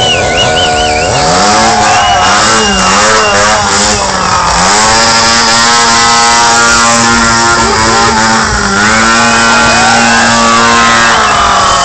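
Two-stroke chainsaw engine held at high revs, dropping briefly about three, four and a half and nine seconds in, and easing off near the end. A high wavering whistle-like tone sounds over it in the first two seconds.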